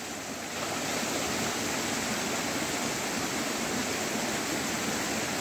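Steady rushing hiss of a shallow, rocky forest stream. It grows a little louder about half a second in, as a lit firecracker starts fizzing out smoke. There is no bang.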